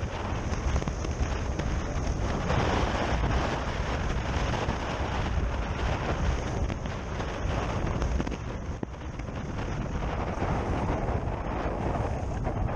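Wind rushing steadily over the rider's microphone, with road noise, while a Zero SR/F electric motorcycle rides between lanes of traffic; no engine note is heard, only the rumble of wind and passing cars close alongside.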